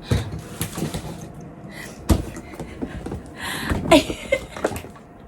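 Knocks and handling thumps, with the sharpest knock about two seconds in and rustling between them, plus a brief voice sound near the four-second mark.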